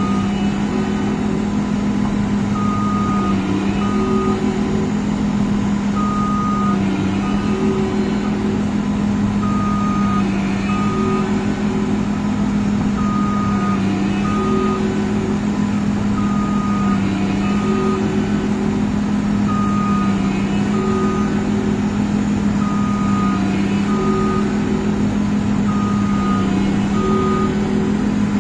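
Tracked Massey Ferguson CS6050 combine harvester running steadily. An electronic warning beeper sounds a pair of beeps, a longer one then a shorter one, about every three and a half seconds.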